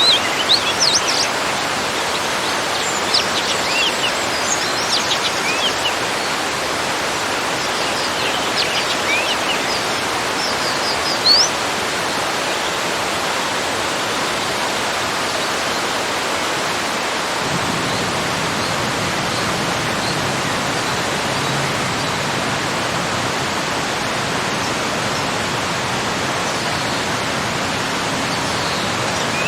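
Small garden waterfall flowing with a steady rushing, and songbirds chirping in short bursts over the first dozen seconds or so. A deeper rushing joins in just past halfway.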